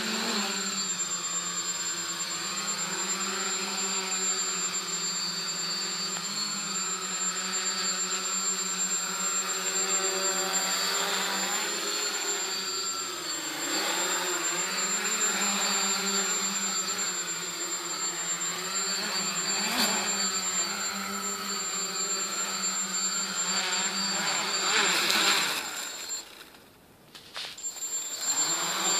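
Electric motors and propellers of a small multicopter hovering, a steady pitched hum whose pitch keeps wavering as the motor speeds are corrected. Near the end the motors cut out briefly, then spin up again.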